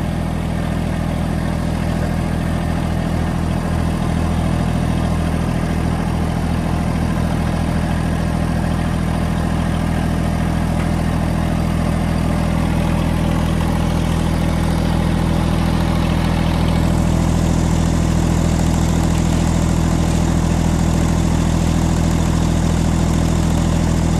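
Massey Ferguson GC1723E compact tractor's three-cylinder diesel engine running steadily. About two-thirds of the way through its note gets a little louder and brighter.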